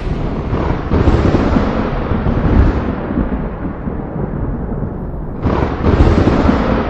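Deep boom sound effect: a boom about a second in rolls on into a long rumble that slowly fades, and a second boom comes about five and a half seconds in.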